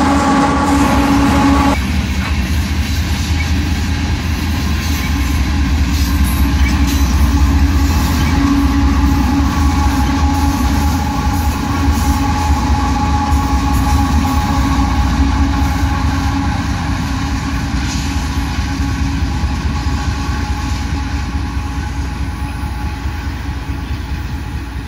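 A diesel locomotive air horn sounds a steady chord and cuts off about two seconds in. It is followed by the continuous low rumble of a loaded Union Pacific coal train passing: diesel locomotives and coal hoppers rolling on the rails. The rumble slowly fades near the end.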